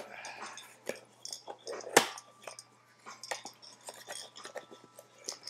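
Packaging being handled and opened by hand: a run of small clicks and crinkles, with one sharp snap about two seconds in.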